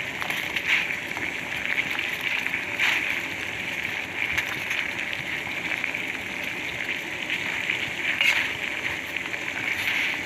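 A pot of belimbing wuluh flowers and rock sugar boiling on the stove: a steady bubbling hiss with a few faint clicks.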